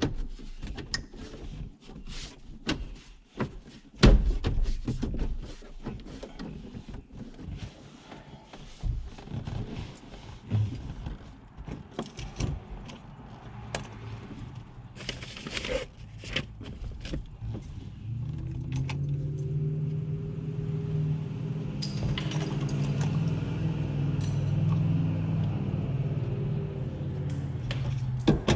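Clicks, knocks and rattles of plastic dash trim, vent pieces and screws being handled and fitted during dash reassembly. A little past the middle a steady low hum with several stacked pitches starts and runs under the last handling noises.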